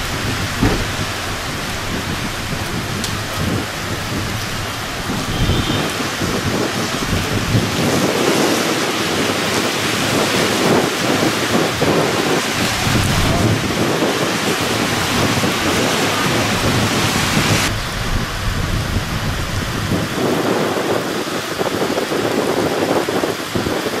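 Heavy downpour rain pouring onto pavement and street, a steady dense hiss with a low rumble underneath. The sound shifts abruptly about two-thirds of the way through.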